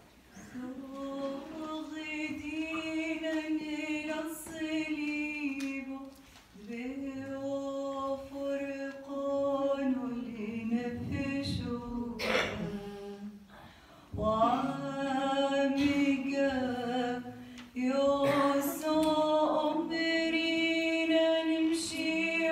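Unaccompanied voices singing a slow devotional hymn: long held notes in phrases a few seconds long, with short breaks between them.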